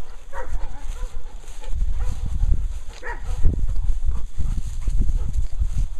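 A few short, high yips from dogs, then, from about two seconds in, loud low rumbling and thumping as a handheld camera is carried at a quick walk, with footsteps and handling noise on the microphone.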